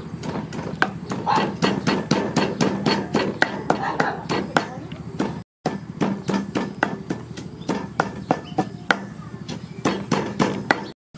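A cleaver chopping meat on a wooden board, fast repeated strokes about three to four a second, broken off briefly about halfway through and again near the end.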